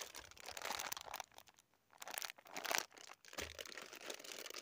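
Plastic groundbait packet crinkling and tearing as it is pulled open by hand, in irregular rustling bursts with a short pause partway through; the packet is stubborn to open.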